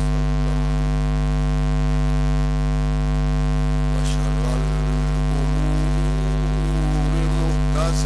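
Loud, steady electrical mains hum in the microphone and amplifier chain, unchanging throughout, with a man's voice faintly audible under it at times.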